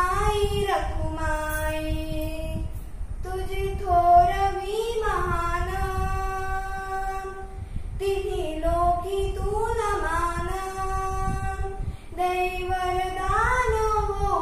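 A girl singing a Marathi devotional song to Vitthal, drawing out long notes that bend up and down, in four phrases with short breaks for breath between them.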